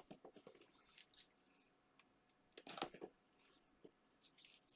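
Faint, brief rustles and light taps of paper card pieces being handled, with the loudest cluster about three seconds in and a few more near the end.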